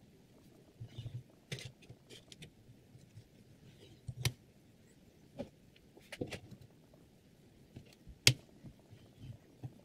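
Scattered light clicks and knocks from handling tools on a metal knife-sharpening rig: a sharpening stone put aside and a digital angle gauge set onto the clamp. One sharp click about eight seconds in is the loudest.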